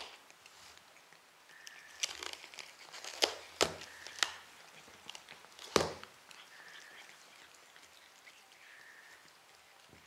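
Cats biting and tearing blades of cat grass from a pot, with a run of about five sharp crunching snaps in the middle and quieter chewing and rustling around them.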